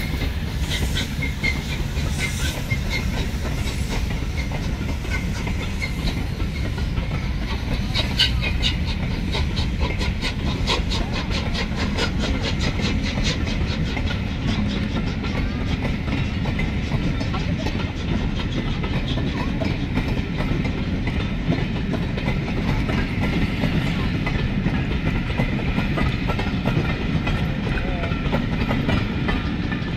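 Train hauled by the LNER A3 steam locomotive Flying Scotsman rolling slowly past, a steady rumble with coach wheels clicking over the rail joints, most densely from about eight seconds in. Steam hiss from the departing locomotive fades in the first few seconds.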